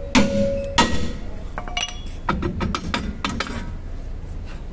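Hammer striking an Isuzu D-Max's steel rear brake drum to free it from the hub: two loud metallic knocks with a ringing tone in the first second. Then a run of lighter clinks and knocks as the drum works loose and slides off the brake shoes.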